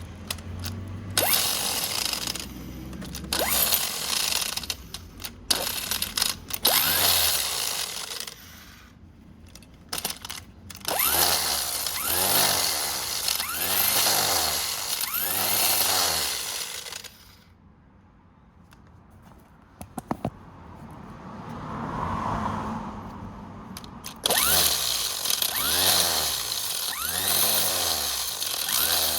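A handheld power tool running in several bursts of a few seconds each, its pitch rising and falling, with short pauses between them.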